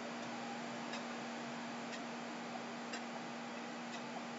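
Faint ticking of a clock, about one tick a second, over a steady low hum and hiss.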